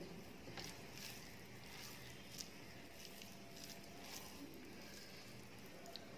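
Fingers squishing and kneading rice into a soft mash on a plate, making faint, irregular wet clicks and squelches.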